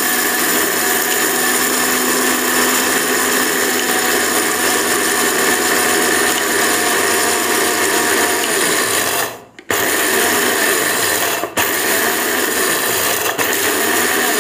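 Zunvolt 750 W mixer grinder running with its stainless-steel jar grinding rice, the speed knob turned through low, middle and high. The motor cuts out for a moment about nine and a half seconds in and starts again, with a brief dip about two seconds later.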